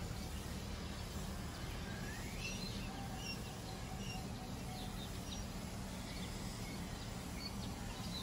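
Newly hatched coturnix quail chicks peeping faintly, a scatter of short high chirps and a few rising calls, over a steady low background hum.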